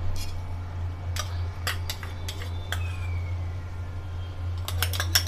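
A metal spoon clinking and scraping against a metal cooking pot as a ground masala paste is scraped into it: scattered sharp clicks about a second in, then a quick cluster near the end, over a steady low hum.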